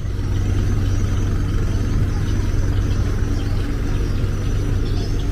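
Steady low drone of a river passenger boat's engine under way, with the hiss of water rushing past the bow.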